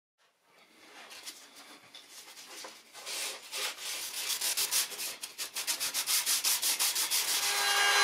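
Hand sanding of a wooden board with sandpaper: rasping back-and-forth strokes, about three to four a second, that grow louder. Near the end a wood router's motor starts with a steady whine.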